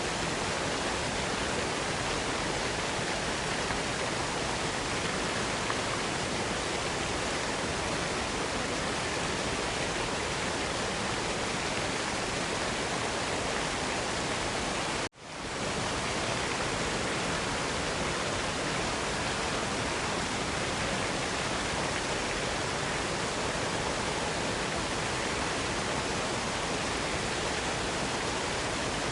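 Steady rushing of a waterfall, an even hiss with no distinct splashes. It cuts out for an instant about halfway through and swells back within half a second.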